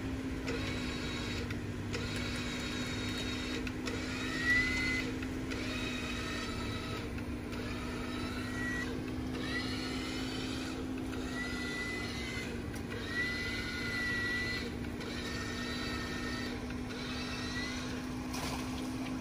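Jeep Wrangler off-roading at low speed: a steady low hum runs throughout, with higher whining tones that rise and fall in short stretches, broken about every second or two.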